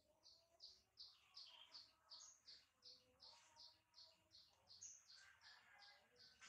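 A bird chirping faintly over and over, short high notes at an even pace of about three a second.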